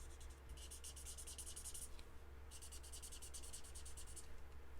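Marker nib scribbling on cardstock in rapid back-and-forth colouring strokes: two long runs of quiet scratching with a short pause between, a third starting near the end, as the stamped image is coloured in.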